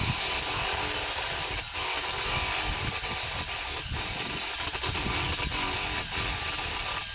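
Cordless drill running steadily under load, drilling into the top of the wooden post, easing off briefly three times.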